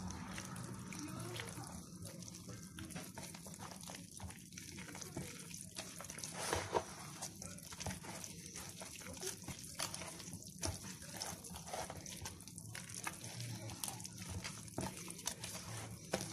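Hand mixing and kneading wet flour dough for yeasted bread in a bowl: irregular soft, wet working and scraping sounds.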